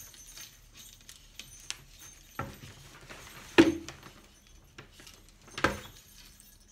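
Handling noise while small jingle bells and wire are fastened to painted wooden sock stretchers: light clinks and jingles, and three knocks as the stretchers bump the tabletop, the middle one the loudest.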